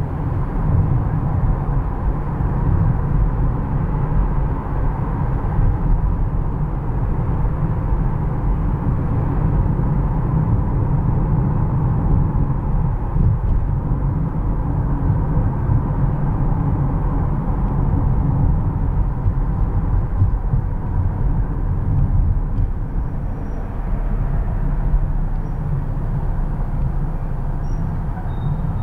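Steady low rumble of a car driving through city streets: tyre and road noise with engine hum, with no sudden events.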